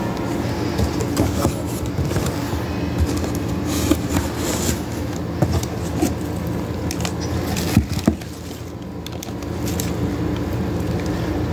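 Cardboard box flaps and plastic-bagged produce being handled, with light rustling and crackling and a few sharp clicks, the loudest about 8 seconds in, over a steady low hum.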